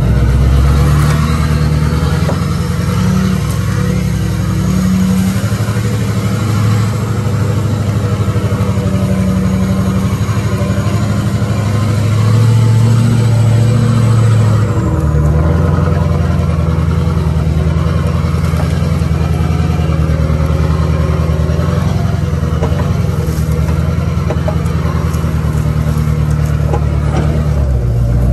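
Truck engine running steadily, as when pulling logs. Its note shifts about halfway through and again near the end, and a faint high whine rises over the first half, then drops away.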